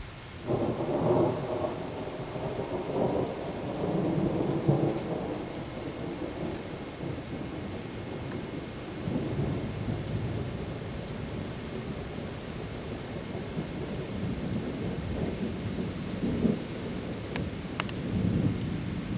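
Thunder rumbling and rolling, loudest just after it starts about half a second in, then swelling again later, over steady falling rain.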